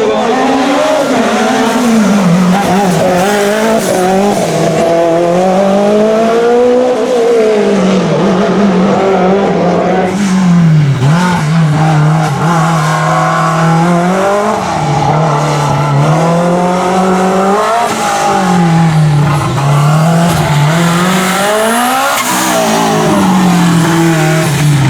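Lancia Delta S4 Group B rally car's twincharged 1.8-litre four-cylinder engine running hard, its note rising and falling over and over as the driver accelerates and lifts through a stage.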